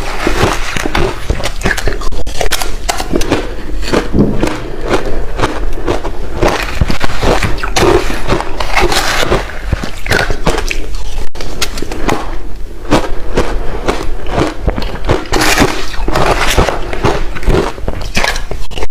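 Close-miked chewing of crushed ice: dense, irregular crunching and cracking with no pause.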